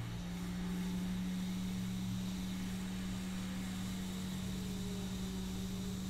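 Steady hum of a small electric blower motor with an even airy hiss, unchanging throughout.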